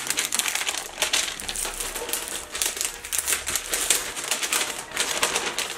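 Brown kraft wrapping paper crinkling and rustling in the hands as a present is unwrapped, a dense, irregular crackle throughout.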